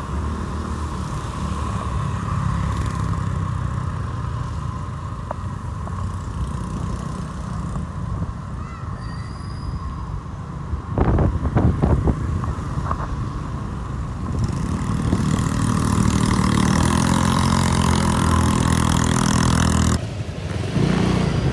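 Suzuki motorcycle engine running steadily while ridden through city traffic, with a few sharp knocks about eleven seconds in. From about fifteen seconds in the engine gets louder and there is more hiss.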